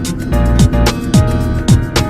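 Background music with a steady beat: drums and plucked guitar-like notes.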